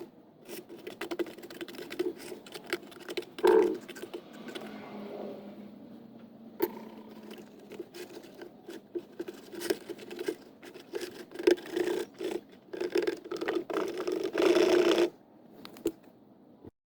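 Irregular scraping, scratching and tapping of a hand tool on a hard ceramic or cement surface, with a louder, denser burst of scraping near the end.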